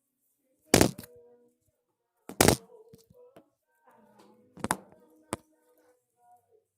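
Phone handling noise: four loud knocks and bumps on the phone's microphone as it is put down and settled.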